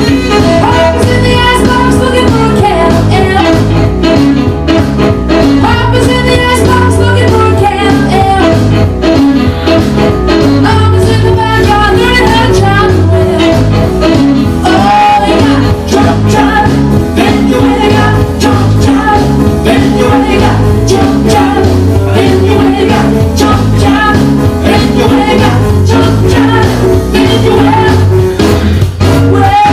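A recorded song: a singer over a band with a steady beat.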